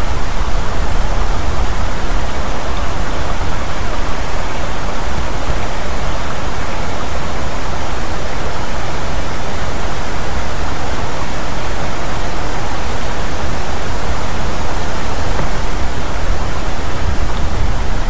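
Steady loud wind noise on an outdoor nest-camera microphone: an even hiss with low, unsteady buffeting underneath.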